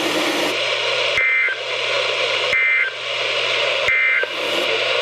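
Weather radio static with three short, identical bursts of harsh digital data tones a little over a second apart: the SAME end-of-message (NNNN) bursts that close a broadcast severe thunderstorm warning.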